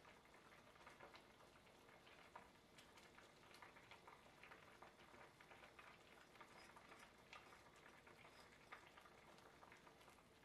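Faint simmering of corn kernels in liquid in a pot: small bubbles popping in soft, irregular ticks, several a second.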